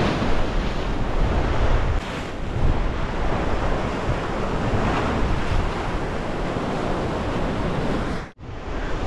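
Surf washing and foaming against a rocky shoreline, with wind buffeting the microphone in a steady low rumble. The sound drops out suddenly for a moment near the end.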